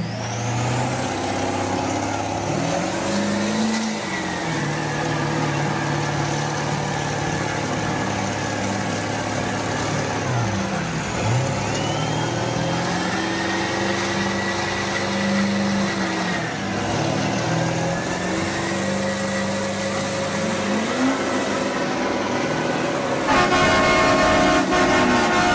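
High-horsepower truck engines running hard at once, their revs rising and falling again and again as the trucks pull against each other. A loud horn blast sounds near the end.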